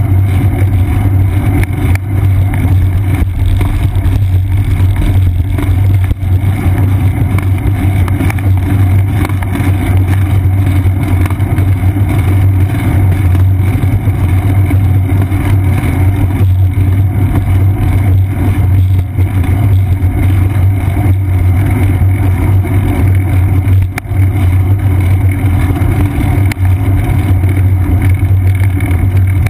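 Steady, loud low rumble of riding noise picked up by a seat-post-mounted GoPro Hero 2 on a moving bicycle: wind over the camera and road vibration through the seat post.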